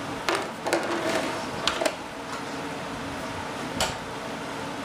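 A few sharp clicks and knocks, about five in all, from hand tools and parts being worked inside the fuselage of a model jet while the landing gear is removed, over a steady background hum.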